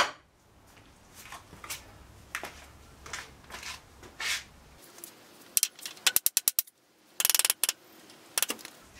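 Workshop tool and handling sounds: scattered knocks and taps, then a quick run of about eight sharp clicks and a brief buzzing rattle a little past halfway, as the clamps on a glued-up wooden keel lamination are tightened.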